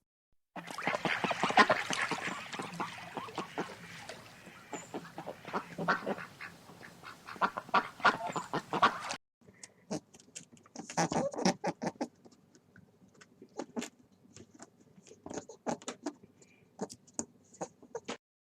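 A flock of domestic waterfowl calling: many overlapping calls for the first nine seconds or so, then after an abrupt cut a second stretch of sparser, separate calls.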